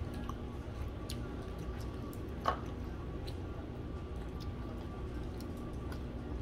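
Steady low room hum with scattered faint clicks of chopsticks and tableware, and one clearer clink about two and a half seconds in.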